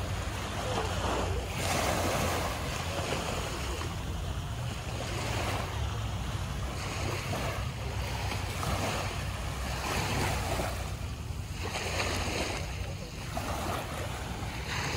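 Sea waves breaking and washing ashore in repeated surges every two seconds or so, over a steady low rumble of wind on the microphone.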